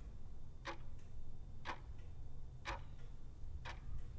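Clock-tick sound effect marking a quiz countdown timer: four evenly spaced ticks, one a second, over a faint low hum.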